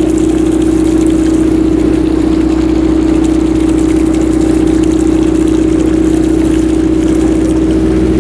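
Engine idling steadily: a constant drone with one strong pitched tone and a low hum beneath, holding the same speed throughout.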